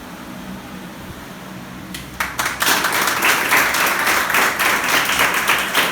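Audience applauding: a steady low room hum, then a burst of many people clapping that starts suddenly about two seconds in and keeps going.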